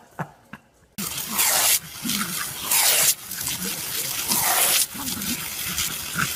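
Garden hose nozzle spraying a jet of water, which a dog and a cat snap at: loud hissing that swells in several bursts, with short voice-like sounds mixed in.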